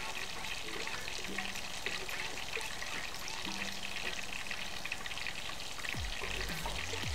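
Vegetable tempura deep-frying in a pot of hot oil: a steady sizzle and crackle of bubbles, the moisture in the vegetables escaping into the oil. A couple of low knocks near the end as a spider strainer moves in the pot.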